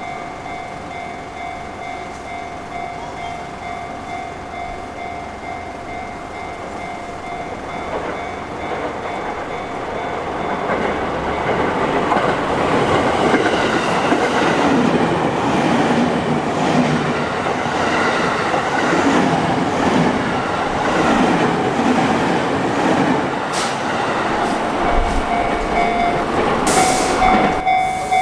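Level-crossing warning bell ringing steadily, then a Sotetsu Line train running through the crossing from about ten seconds in, growing louder, its wheels clattering over the rail joints. The crossing bell's ringing comes through clearly again near the end as the train clears.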